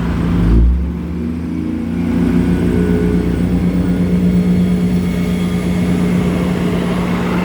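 State Railway of Thailand passenger train's coaches rolling past with a steady droning hum. There is a low thump about half a second in.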